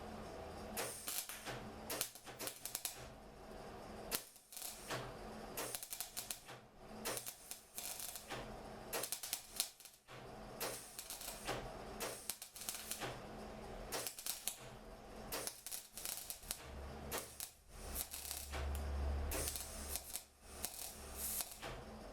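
Short spells of rapid, irregular clicking and crackling with brief pauses between them, from hand metalwork on a car chassis under rust repair. A low rumble comes in about three quarters of the way through.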